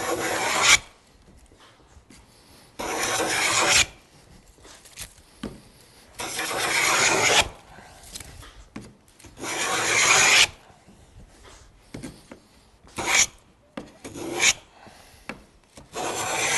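Wooden round moulding plane cutting a cove in a board, each pass a rasping stroke of about a second as a shaving comes off, with a pause between passes. There are five full passes and two short ones between the last two.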